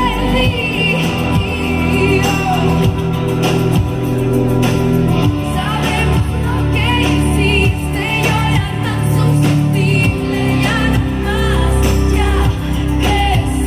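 Live pop band playing a song with a woman singing the lead vocal over steady bass and chords.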